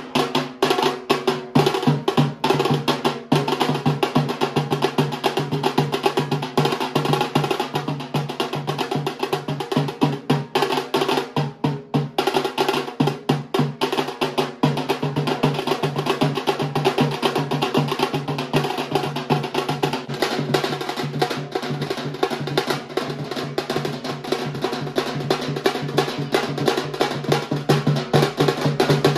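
Rapid, continuous drumming on large steel-shelled street drums, many strokes a second over a steady low ringing tone from the drum heads.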